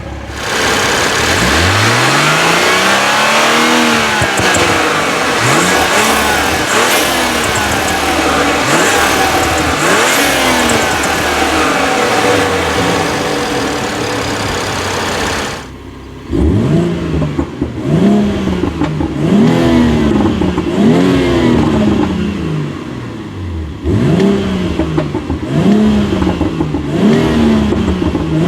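2018 BMW X3 M40i's turbocharged 3.0-litre inline-six revved while stationary: one long rev that climbs and falls back, then a run of quick throttle blips. About halfway through the sound drops away for a moment, and a second series of sharp blips follows, roughly one a second.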